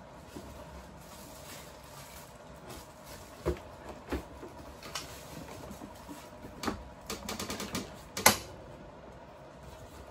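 Scattered clicks, taps and knocks of a capsule coffee machine and its packaging being handled during unboxing, with a quick run of small clicks about seven seconds in and a sharp knock just after eight seconds.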